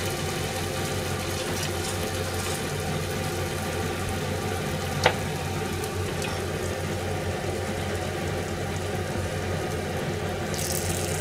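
Steady sizzling from chicken rice cooking in a glass-lidded frying pan on a gas hob, over a low steady hum. One sharp click about five seconds in.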